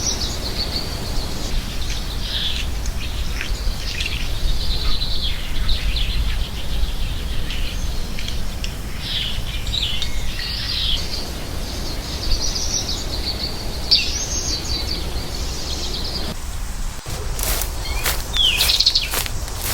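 American goldfinch singing a long, varied twittering song of high chirps and warbles over a steady low background rumble. A quick run of sharp clicks or knocks starts near the end.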